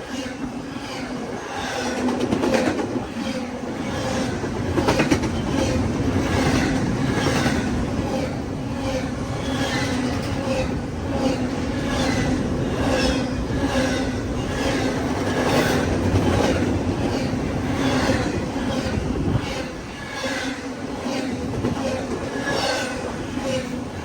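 A CSX intermodal freight train's cars rolling past, their wheels clacking steadily over the rail joints with a steady hum underneath.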